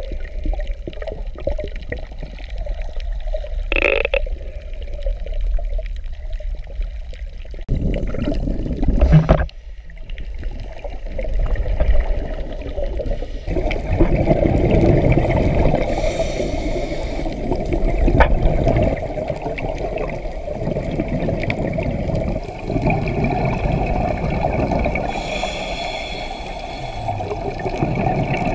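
Water heard through an underwater camera housing: sloshing and gurgling in the shallows. From about halfway through this gives way to a steady rush of scuba exhaust bubbles that swells every few seconds with the diver's breaths.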